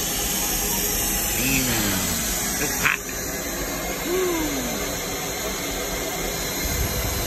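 Steam hissing steadily as it vents from a pipe beside the vertical cylinders of a standing Shay geared steam locomotive. A sharp click comes about three seconds in, and the hiss is a little quieter after it.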